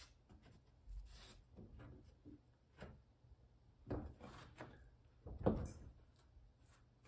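Wooden stick scraping and smoothing body filler over a patch in a particleboard cabinet floor: a few faint, short scraping strokes, the loudest two about four and five and a half seconds in.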